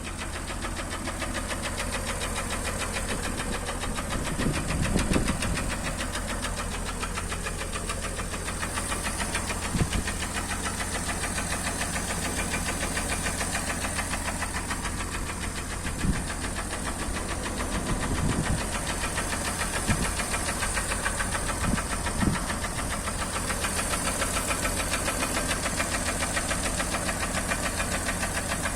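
Acura MDX V6 engine running with a steady, rapid knock from inside the engine, the fault the owner is showing. A few louder single thumps stand out now and then.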